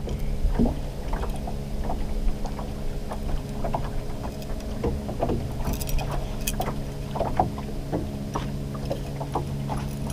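Boat motor running steadily at trolling speed, a continuous hum, with scattered light ticks and knocks over it.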